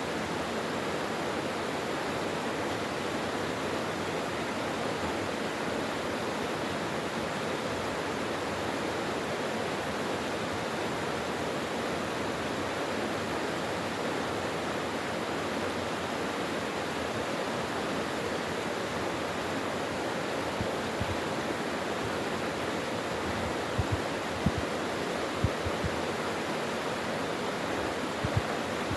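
Mountain valley stream rushing steadily over rocks. In the last third a few brief low thumps stand out above the flow, the loudest about 24 to 26 seconds in.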